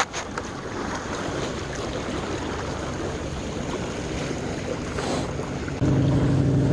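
Steady wash of wind and small waves against breakwater tetrapods. About six seconds in, a steady engine drone sets in suddenly and holds at one pitch.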